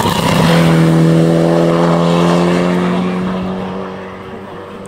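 Mitsubishi Lancer Evolution rally car's turbocharged four-cylinder engine passing close by and pulling away. Its steady note is loudest about a second in and fades over the next few seconds.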